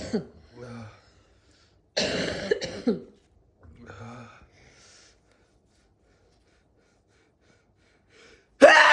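A person's harsh, explosive coughing fits brought on by snorting Cheenkni, a Unani sneezing snuff: several separate bursts, the loudest just before the end.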